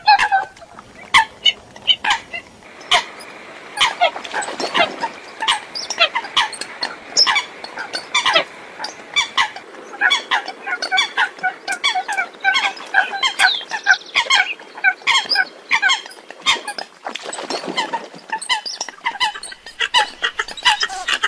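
A flock of Eurasian coots calling: many short calls overlapping in quick succession, with sharp clicks among them and two brief noisy rushes, about four and seventeen seconds in.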